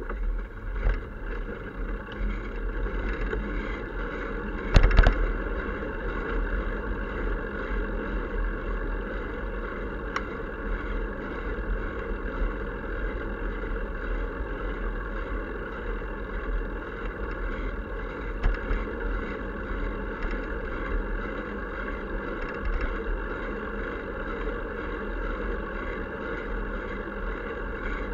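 Steady wind and road rumble picked up by a bicycle-mounted camera while riding, with one sharp thump about five seconds in.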